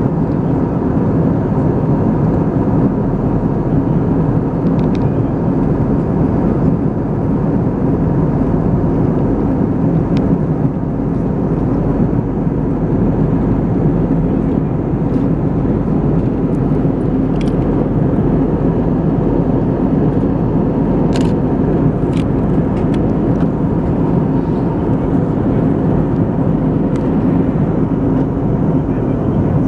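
Steady cabin noise inside an Airbus A320-214 in flight: even engine and airflow noise with a low hum, and a few faint clicks about two-thirds of the way through.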